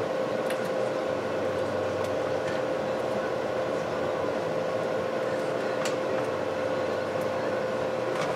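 Steady machine drone with a constant hum tone, like a running fan or blower motor, with a few faint light clicks of small parts being handled.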